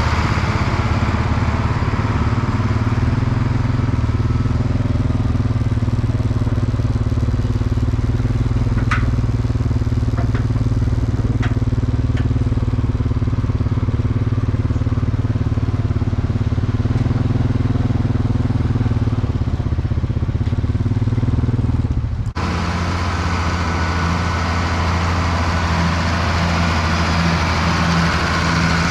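Farm tractor engine running steadily at a constant speed. About two-thirds of the way through, it cuts abruptly to another steady engine sound at a different pitch.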